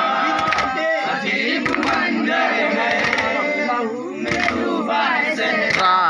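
A crowd of men chanting and shouting together in a Shia mourning nauha for Hussain, with sharp hand slaps of chest-beating (matam) at uneven intervals.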